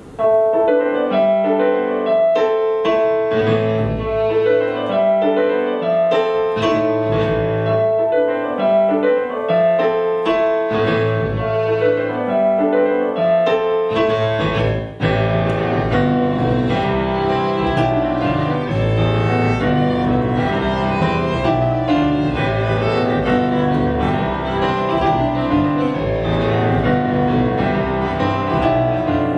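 Live folk instrumental introduction on electric keyboard and violin, the keyboard playing a repeating figure. About fifteen seconds in, after a brief dip, the music fills out with more low notes.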